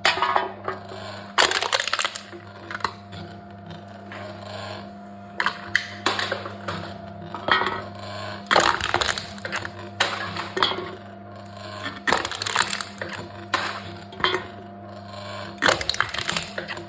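Aluminium drink cans being crushed by a can-crushing machine: a string of sharp crunching, crackling bursts of buckling metal, about one every second or two, over a steady low hum.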